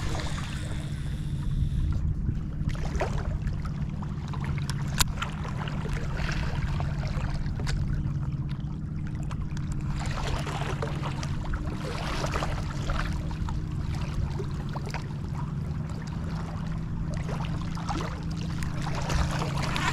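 A boat motor running steadily, a low even hum, with water and wind noise around it. One sharp click about five seconds in.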